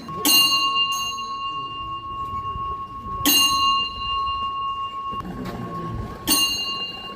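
A metal bell struck three times, about three seconds apart, each strike ringing on with a clear, lingering tone, over a low murmur of voices.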